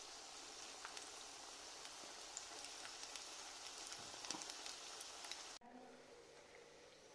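Cheese potato cutlets frying in hot oil: a steady sizzle with small pops. It stops abruptly about five and a half seconds in, leaving a fainter hiss.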